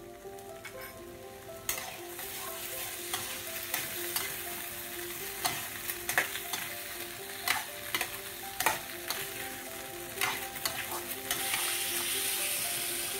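Onions and capsicum stir-frying in a pan, sizzling steadily while a slotted steel spatula stirs them and clicks against the pan at irregular moments. The sizzle grows louder near the end.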